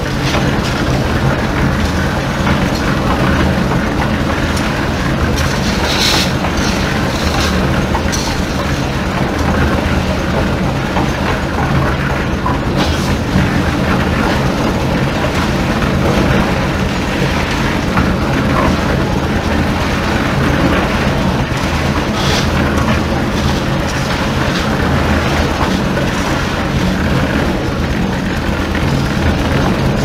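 Engine-driven concrete mixer running, its engine droning steadily while the turning drum churns the mix, with scattered knocks and clatters from inside the drum.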